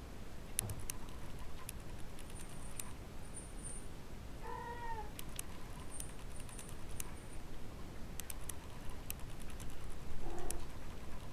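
Kitten mewing, 19-day-old kittens: one short, high, arching mew about four and a half seconds in and a fainter, lower one near the end, over faint scattered clicks.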